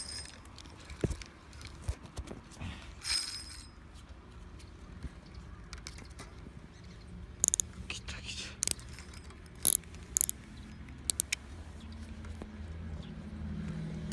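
Scattered sharp clicks and short scraping noises from rod-and-reel tackle being handled while a hooked carp is played in, with the sharpest clicks bunched together after the middle. A low rumble builds near the end.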